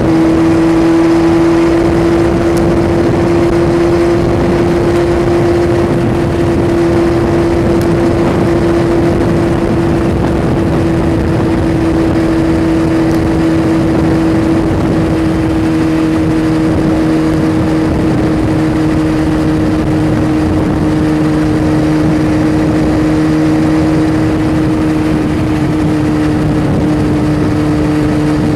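A vehicle engine running at a steady cruising speed while driving along a road: a constant drone over road and wind noise, its pitch easing down slightly over the stretch.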